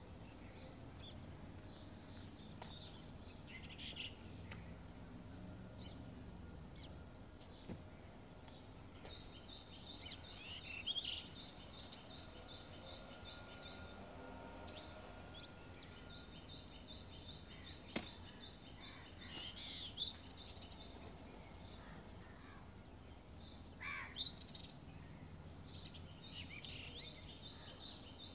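Faint outdoor background noise with birds chirping and calling on and off, and a single sharp click about two-thirds of the way through.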